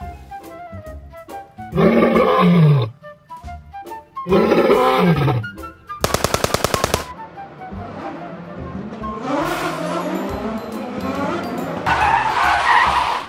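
Comic sound effects dubbed over background music: two loud sounds falling in pitch, then a rapid burst of about ten sharp pops in a second, then a longer swelling noisy stretch that grows loudest near the end.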